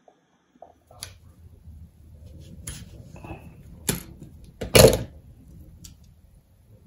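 Metal pliers and small hardware being handled on a wooden workbench board: several sharp clicks and knocks, the loudest about five seconds in, over a low rumble.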